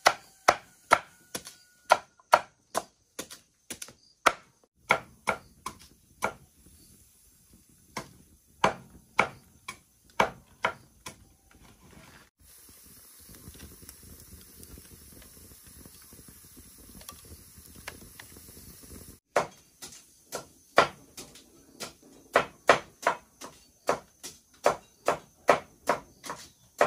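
Heavy cleaver chopping cassava roots into slices on a wooden block, sharp chops about two a second. The chopping stops for about seven seconds midway, leaving a steady low hiss of a wood fire burning, then resumes.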